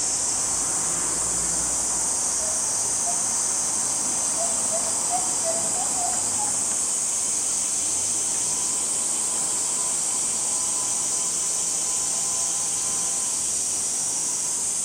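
Steady, high-pitched drone of a chorus of insects, even and unbroken throughout.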